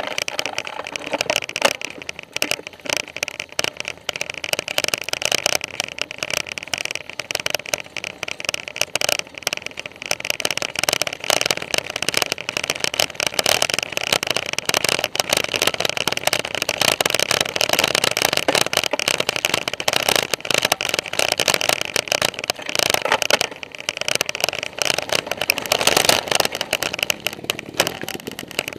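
Mountain bike rattling and clattering over a rocky trail, heard from a camera mounted on the bike: a dense run of rapid knocks and clicks over a steady hiss.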